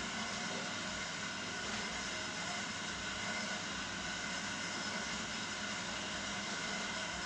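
Gas stove burner on a medium flame, giving a steady, even rushing noise with no changes or separate events.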